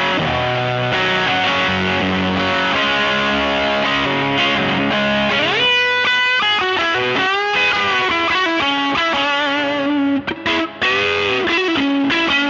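Electric guitar (Fender '52 Telecaster) through a JHS Bender fuzz pedal into a 1966 Fender Vibrolux Reverb, whose two 6L6 power tubes drive two 10-inch Jensen speakers, playing heavily fuzzed, sustained chords. About halfway through, a note bends upward into a single-note lead line with bent, wavering notes and a brief gap near the end.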